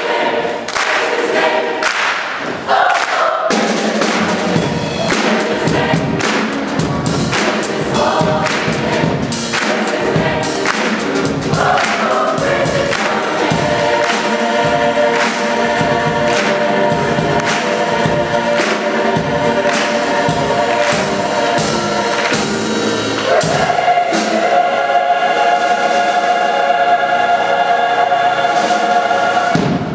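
Large combined high-school choir singing an upbeat gospel song with piano and a steady beat of hand claps. Near the end the choir holds one long final chord for several seconds, which cuts off just before the end.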